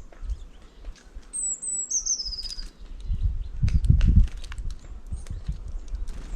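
A small bird calling at a feeder, about a second and a half in: a few high chirps running into a quick falling trill. Scattered light ticks sound around it, and a low rumble about three to four seconds in is the loudest part.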